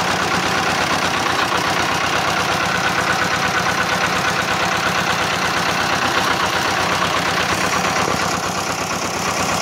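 Old tractor's engine idling steadily.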